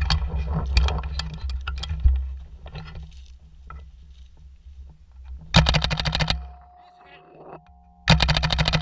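Paintball marker firing two rapid bursts of about a dozen shots a second, one a little past halfway and one near the end. Scattered knocks and clicks over a low rumble fill the first two seconds.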